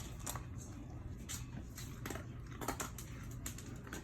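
A dog chewing food, with a few sharp crunches spaced irregularly over a low steady hum.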